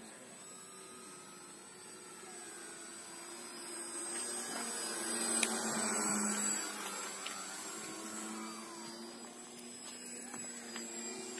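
Foam RC airplane's motor and propeller whining in flight, growing louder to a peak about halfway through as it passes, then fading.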